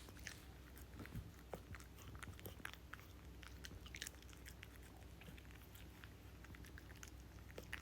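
Toy poodle chewing and licking, a quiet run of small wet mouth clicks.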